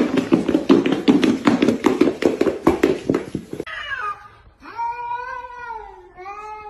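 A cat yowling: a short falling cry, then one long drawn-out meow that sags slightly in pitch, and a second long one starting near the end. Before it, for about three and a half seconds, comes a louder rapid run of crackling, clattering sounds.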